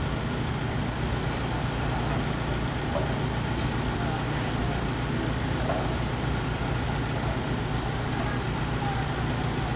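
Steady low mechanical drone of heavy machinery running, even throughout, with indistinct workers' voices now and then.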